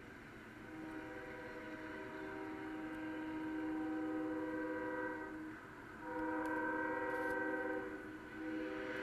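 Union Pacific locomotive's Nathan K5HL five-chime air horn sounding a chord in long blasts, breaking briefly about five and a half seconds in and again near the end before sounding again. Heard through the webcam's live audio played back on a computer.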